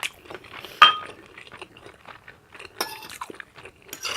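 Close-up open-mouth chewing and lip smacking, with a utensil clinking sharply against a plate a little before a second in.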